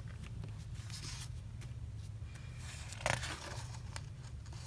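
Hands rubbing and pressing paper planner pages flat, soft rustling and scraping of paper, with a brief louder rustle about three seconds in as a page of the disc-bound planner is turned. A steady low hum runs underneath.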